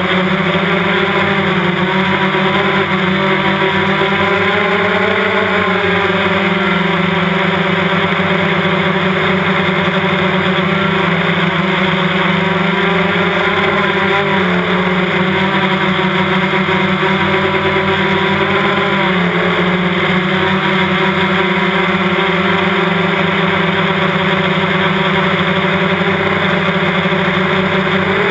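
DJI Phantom quadcopter's electric motors and propellers, a steady loud buzzing whine picked up close by the onboard camera's microphone. Its pitch swells and dips briefly a few times.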